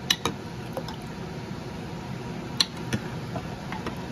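Metal ladle clinking against a plastic mixing bowl while milk is stirred into a tamarind broth: a few light clicks, two at the start and two more about two and a half seconds in, over a steady low hum.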